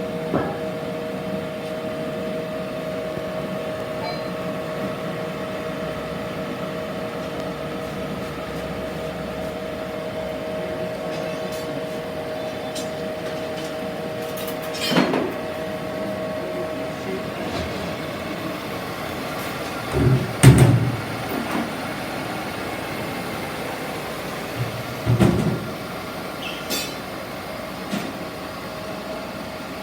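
SMTW MB1332B OD (cylindrical) grinder running: a steady hum with two held tones over an even mechanical noise, the tones fading out a little past halfway. A few heavy knocks come through, the loudest about two-thirds of the way in.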